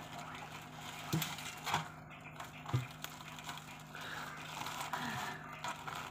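Hands pulling apart a ripe tarap fruit, with soft rustling from the torn fibrous flesh and a few light knocks. A low steady hum runs underneath.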